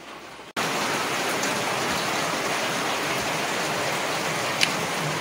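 A steady, loud rushing hiss that starts abruptly about half a second in.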